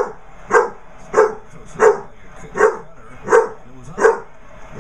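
Basset hound puppy barking over and over, about seven evenly spaced barks at a steady pace of roughly one and a half a second.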